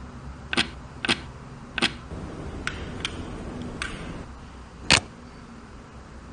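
A string of seven sharp, irregular clicks from handling the keyboard cleaning kit's tools, the last and loudest about five seconds in, over a faint steady hum.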